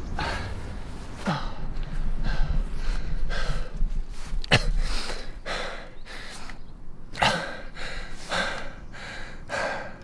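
A runner panting heavily through an open mouth, quick regular gasping breaths in and out, out of breath and recovering after a hard, fast run.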